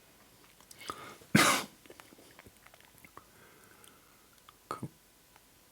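One loud cough about a second and a half in, with a shorter one near the end. Faint small clicks in between come from handling the lock's small parts.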